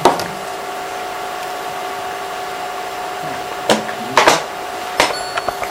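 Steady whirring machine hum with two constant tones, broken by a few sharp clicks and knocks, a pair of them near four seconds in.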